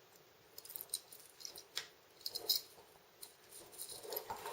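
Faint rustling and light clicks of a braided rope being threaded through a small Harken pulley block by hand, a few short scattered sounds spaced about half a second to a second apart.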